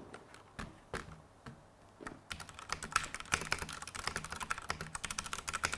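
Typing on a Ducky One 2 Mini 60% mechanical keyboard with double-shot PBT keycaps: a few scattered keystrokes, then fast continuous typing from about two seconds in.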